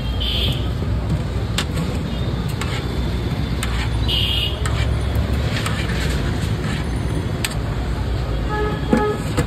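Steady rumble of road traffic beside a street food stall, with sharp clinks of a steel serving spoon against steel pots. There are a couple of short high-pitched toots, and a brief tone near the end.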